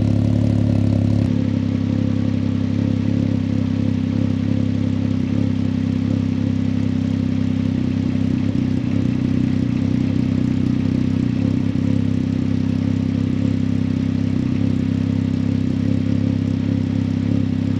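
Can-Am Ryker 900's Rotax three-cylinder engine idling steadily through a freshly fitted RLS Core Series aftermarket exhaust. Its note shifts slightly about a second in.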